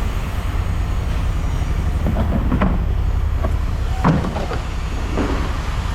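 Steady low rumble of a running engine or heavy machinery, with about seven scattered clanks of scrap metal being handled; the sharpest comes about four seconds in.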